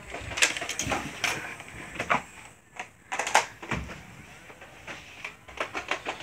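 Scuffling and handling noise: irregular clicks, knocks and rustles of people moving about and handling toy Nerf blasters, with a quieter moment a little past halfway.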